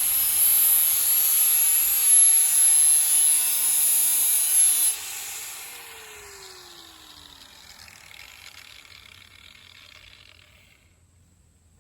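DeWalt power sander grinding against a steel machete blade to sharpen its edge. About five seconds in it is switched off and the motor winds down with a falling whine.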